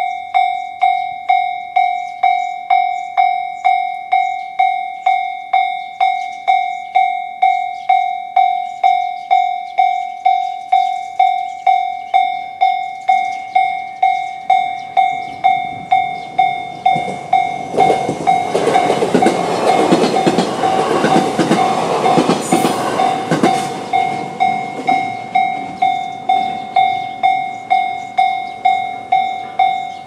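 Japanese railway level-crossing alarm in the JR standard sound, an electronic bell-like tone striking about one and a half times a second. An E129 series electric train passes over the crossing from about 16 to 25 seconds in, its wheels clattering on the rails and loudest around 20 seconds in.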